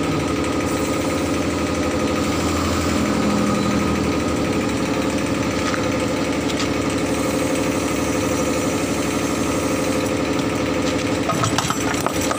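Air-over-hydraulic bottle jack's air pump running with a rapid, steady pulsing as the jack raises the rear of a tractor.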